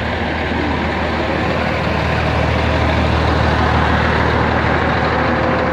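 An engine running steadily, a constant low hum under a loud, even rushing noise.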